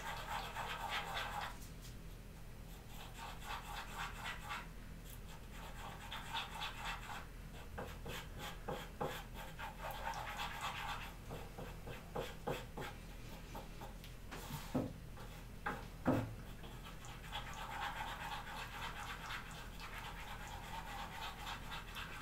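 A wooden stir stick scraping and scratching as thickened epoxy putty is worked on a wooden board, coming and going in short spells, with light clicks and a couple of small knocks around the middle.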